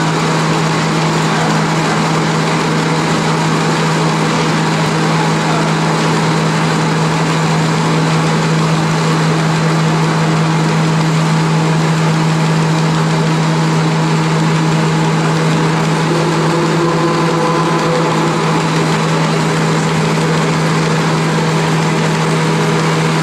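EPE foam net extruder line running: a steady machine hum from its electric drive motors and gearbox, a strong low drone under an even hiss, unchanging throughout.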